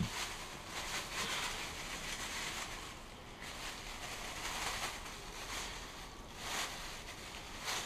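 Clear plastic bag crinkling and rustling in irregular swells as hands rummage through it.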